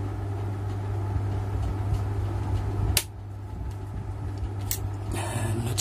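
Homemade spot welder's transformer humming steadily while two 1-inch nails are pressed between its electrodes. There are sharp snaps about three seconds in and again near the end, and a brief crackle of arcing as the welding current passes through the nails.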